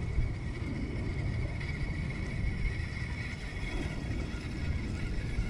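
Wind rumbling on the microphone, with a faint steady high-pitched drone over it and no distinct events.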